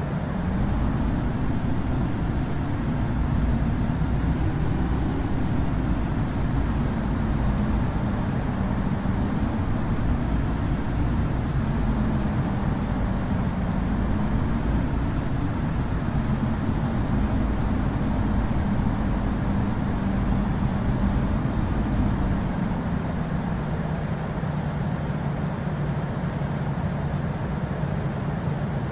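Boeing 787-9's Rolls-Royce Trent 1000 jet engines heard from the cabin: a heavy rumble with a wavering low hum and a thin high whine. About 22 seconds in, the high whine and the deepest rumble drop away, leaving a steadier hum.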